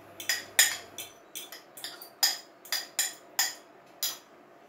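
A metal fork scraping and knocking against a ceramic bowl in a quick, irregular run of clinks, as wet egg-and-minced-beef filling is scraped out into a frying pan.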